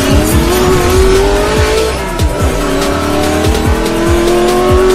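Intro music: a hip-hop beat with a steady kick drum, overlaid with a car engine revving sound effect. Its pitch climbs, drops back about two seconds in, and climbs again.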